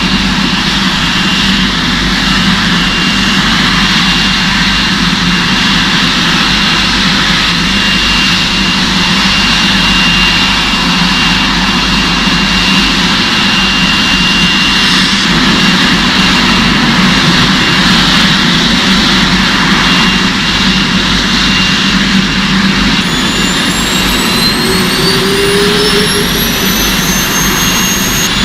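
Jet engines running: a steady roar with a high whine held over it. About 23 seconds in, a rising whine sets in as the engines spool up.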